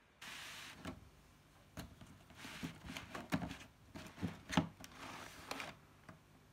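A cardboard shoebox being handled and slid across a rug: a scraping swish near the start and another near the end, with a run of knocks and taps of cardboard in between.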